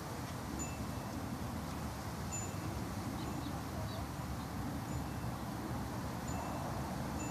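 Outdoor ambience: a steady low rumble with brief, high ringing notes coming irregularly every second or two.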